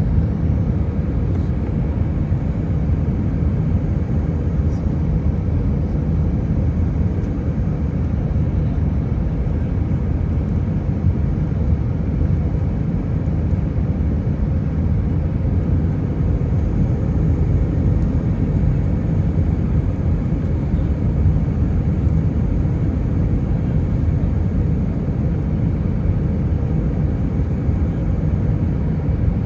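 Steady roar of airflow and engines heard inside the cabin of an Airbus A319 airliner in flight on its landing approach, deep and even with no distinct events.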